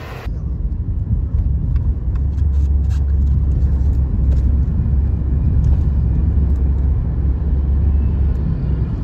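Deep, steady road and engine rumble heard from inside the cabin of a moving car.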